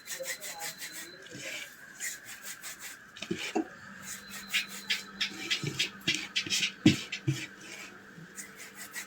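Hands rubbing and crumbling a loaf of bread into fine crumbs for fishing bait, a quick, uneven run of short rubbing strokes.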